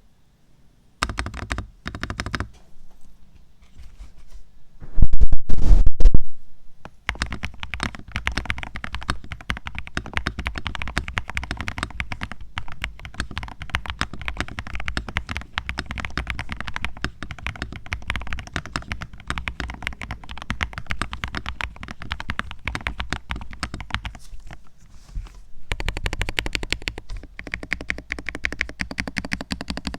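Redragon Wyvern K761 Pro mechanical keyboard being typed on continuously, a fast run of irregular keystroke clicks. About five seconds in there is a much louder burst of clatter lasting a little over a second.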